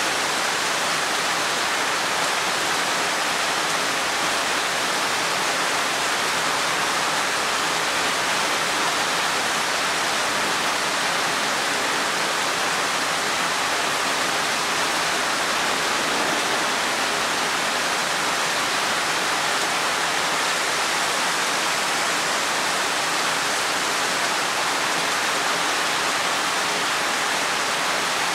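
Rain falling steadily: an even, unbroken hiss with no separate drops or other sounds standing out.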